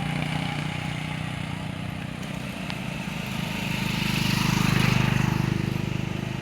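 A motor vehicle engine running steadily, growing louder to a peak about five seconds in and then fading, as if passing by.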